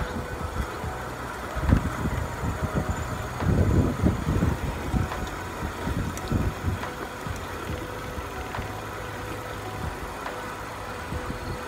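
Kona mountain bike rolling over a rough concrete path, heard from the handlebars: an irregular low rumble of tyre and frame vibration with uneven buffeting, heaviest about three and a half to four and a half seconds in.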